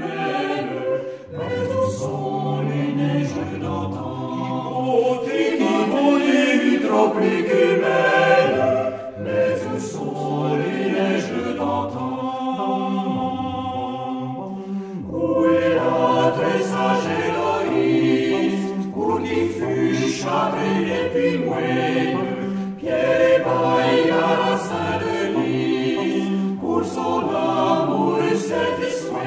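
Mixed vocal ensemble of women's and men's voices singing a French song in chorus, phrase after phrase, with brief breaths between phrases.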